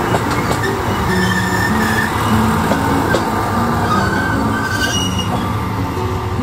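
KiHa E120 diesel railcar rolling slowly past at close range as it pulls into a station, its engine and wheels running steadily, with short high squeals as it brakes.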